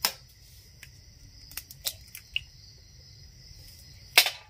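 An egg cracked sharply on the rim of a glass bowl and dropped in, with a few small clicks and another sharp knock near the end. Crickets chirp steadily throughout.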